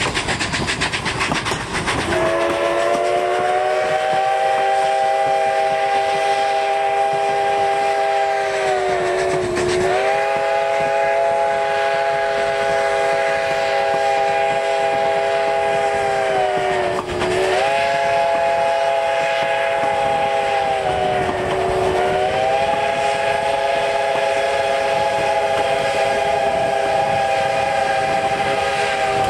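Narrow-gauge steam locomotive's chime whistle blowing one long blast of several notes sounding together, starting about two seconds in; its pitch sags and dips three times before steadying again. Beneath it, the train's wheels clatter along the rails.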